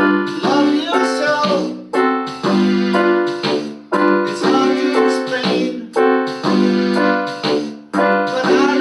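Electronic keyboard playing a repeating pattern of chords, struck about once a second and each dying away.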